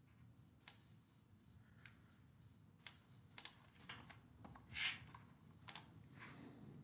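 Faint computer keyboard key presses and mouse clicks, a handful of separate sharp clicks spread out as filter values are typed in and a button is clicked. About five seconds in there is one brief hiss, the loudest moment.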